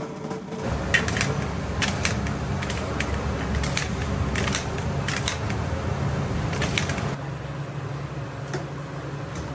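Hand-lever french fry cutter clacking as potatoes are pressed through its square blade grid, a sharp knock about once a second. After about seven seconds this gives way to a quieter steady hum.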